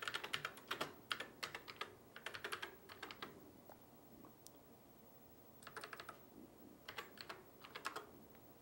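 Typing on a Commodore SX-64 keyboard: quick runs of key clicks over the first three seconds, a pause of about two seconds, then three short runs of keystrokes near the end.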